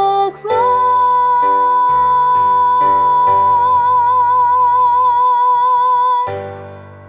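A woman's alto voice sings a long held final note with vibrato over an instrumental accompaniment whose chords change beneath it. The note cuts off about six seconds in, leaving a short fading ring.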